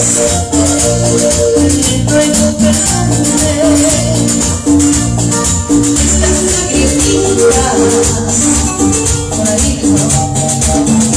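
Amplified music from the venue's sound system: a backing track with bass notes on a steady beat and a constant shaker, with a woman singing live into a microphone over it.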